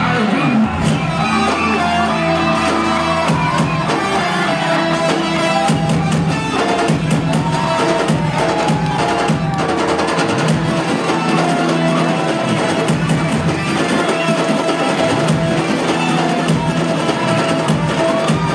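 Loud dance music with a drum beat.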